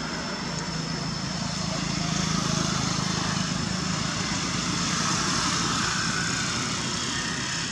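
Steady low engine drone, swelling a little about two seconds in and again around five seconds in, with a faint steady high whine above it.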